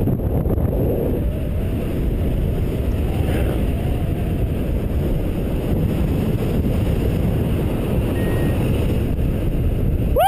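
Steady rumble of wind buffeting the microphone as a paraglider flies, the airflow of flight.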